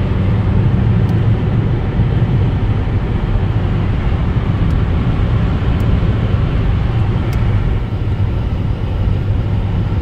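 Steady in-cabin road, wind and engine noise of an Opel Insignia A at motorway speed, about 170–176 km/h, with the speed slowly rising.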